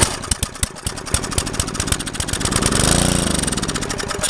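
Small Briggs & Stratton engine pull-started, firing and running briefly on carb cleaner sprayed into the carburetor. Its speed rises to a peak about three seconds in, then slows as that fuel is used up, a sign that the carburetor is not drawing gas from the tank and needs a rebuild.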